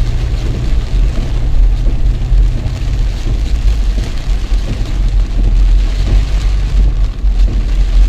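Heavy rain on a car's windshield and roof, heard from inside the cabin over the car's steady low rumble.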